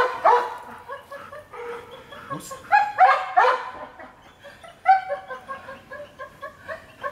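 Young dog giving short, high-pitched barks and yips in bursts while it works a bite tug during bite training.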